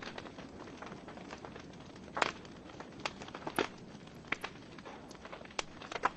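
Wood fire burning in a fireplace: the logs crackle with irregular sharp pops over a soft steady hiss. The two loudest pops come about two seconds and three and a half seconds in.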